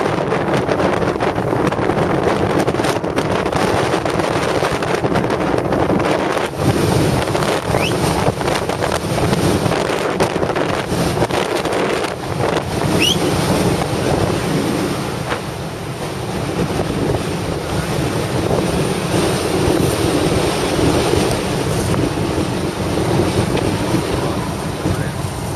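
Wind buffeting the microphone on a boat at sea, over a steady rush of waves and water against the hull. Two brief high chirps rise out of it near the middle.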